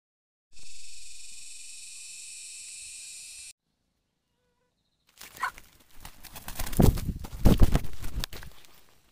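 A steady high insect drone for about three seconds, cut off suddenly. After a pause, the loudest sound: a few seconds of rumbling and crackling handling noise as the camera is swung about.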